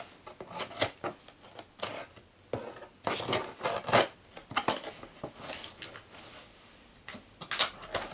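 A cardboard parcel being forced open by hand: irregular knocks, scrapes and rustles of cardboard, tape and packing, in bursts with short lulls.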